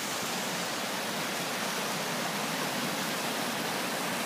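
Mountain river rushing over rocks and a small cascade: a steady, even rush of water.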